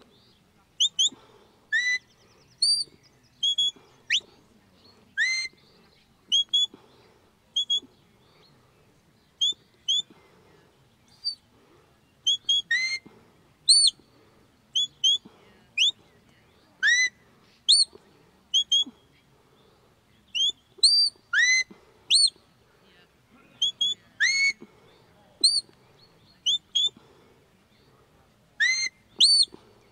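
Shepherd's whistle commands to a working sheepdog: short, loud whistled notes in phrases every second or two, some rising and some quick repeated level pips.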